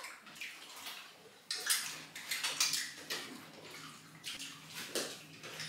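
Metal spoons scraping and clinking against cups of yogurt parfait as several people eat, in a string of short irregular scrapes.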